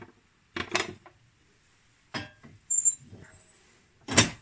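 Metal firebox door and latch of a brick wood stove being opened and handled: a series of sharp metallic clanks and clinks, the loudest about four seconds in, with a brief high squeak near the middle.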